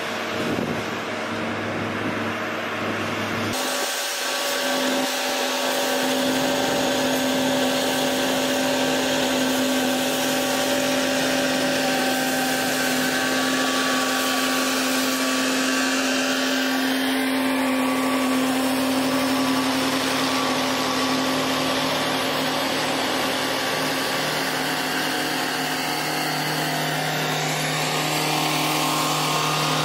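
Diesel engines of a self-propelled chip spreader and the dump truck feeding it, running steadily with a strong hum as they pass slowly during chip sealing. Near the end a lower engine hum joins as a rubber-tyred roller comes close.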